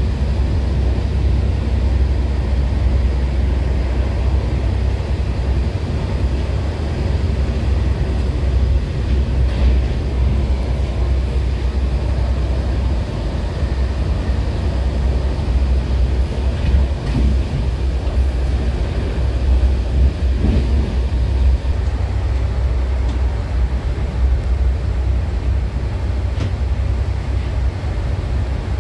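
Passenger train running at speed, heard from inside the coach through a closed window: a steady low rumble with a few faint clicks from the wheels and track.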